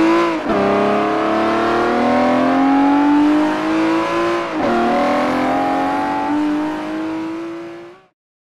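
Race car bed's "speed sound" effect: a recorded sports-car engine accelerating, its pitch climbing steadily and dropping at two gear changes, about half a second in and again past the middle. It cuts off suddenly near the end.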